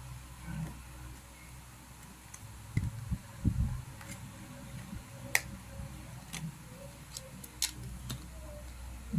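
Scattered light clicks and taps of small laptop parts and RAM modules being handled, with a couple of duller knocks about three seconds in.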